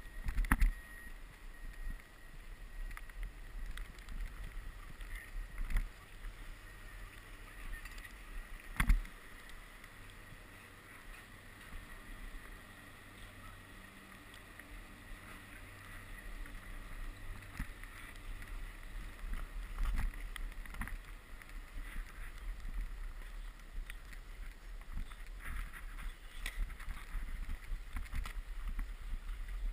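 A rider sliding over packed snow: a steady scraping hiss from the board, with a few sharp knocks, the loudest about half a second and about nine seconds in.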